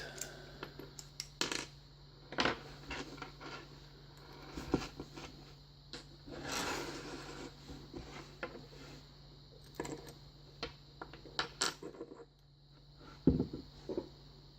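Scattered small metallic clicks and taps of a Phillips screwdriver working at a tight part of a padlock, with a longer scrape about six seconds in and a sharper knock near the end.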